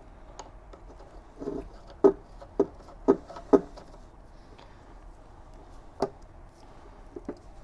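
Sharp clicks and knocks of a feed handle being threaded into a drill press's spindle hub: four in quick succession about two seconds in, then two more, one near the end.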